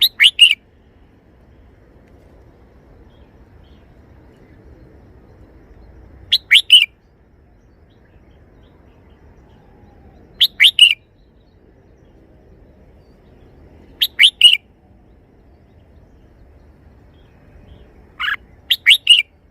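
Red-whiskered bulbul singing a short three-note phrase, repeated five times about every four seconds.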